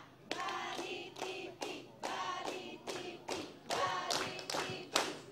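A group of women voicing a rhythmic cheer in unison, clapping their hands in time, about two to three claps a second.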